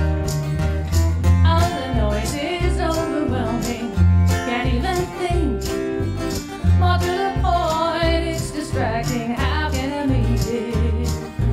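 Live country-style acoustic band playing: strummed acoustic guitar and plucked upright double bass keeping a steady beat, a tambourine shaken on the beat, and singing that comes in about a second and a half in.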